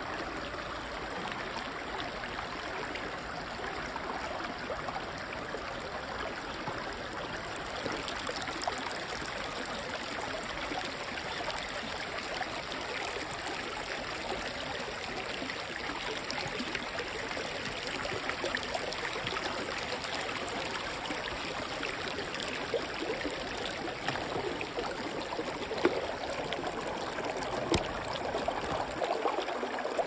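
Shallow creek water rushing and trickling over rocks, steady throughout, with a couple of short sharp knocks near the end.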